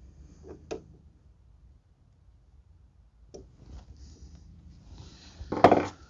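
Screwdriver and hands working a GFCI outlet into a metal electrical box: scattered small clicks and scrapes, with a louder sharp knock about five and a half seconds in.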